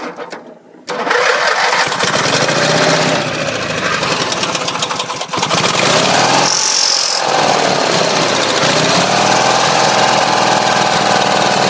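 Air-cooled riding lawn tractor engine, cranked on a jump from a car battery, catching about a second in and then running loudly, its speed rising and falling unevenly.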